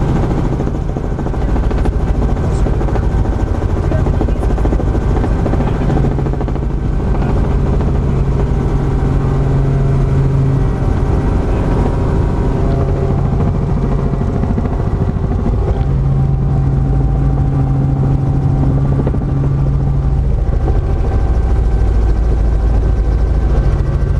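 Steady drone of a small Robinson helicopter's engine and rotor, heard inside the cabin, with a strong low rumble and a constant hum, as it comes in low over the airfield to land.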